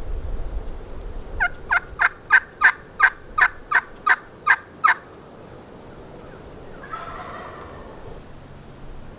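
Wild turkey yelping: a run of about twelve evenly spaced, sharp yelps, about three a second, followed a couple of seconds later by a fainter, rougher turkey call.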